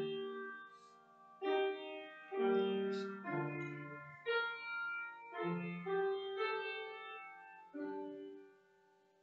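Piano playing a slow series of chords, each struck and left to ring. The last chord dies away near the end.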